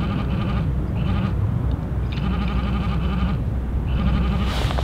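Frogs calling in bouts of rapid, rattling pulses, several in a row, over a steady low rumble. A noisy hiss rises near the end.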